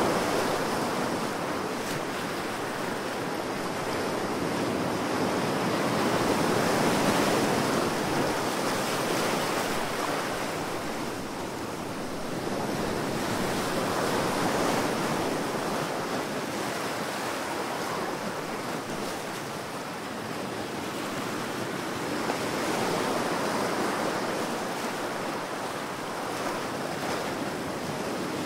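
Ocean surf: waves breaking and washing in, a continuous rush that swells and eases every several seconds.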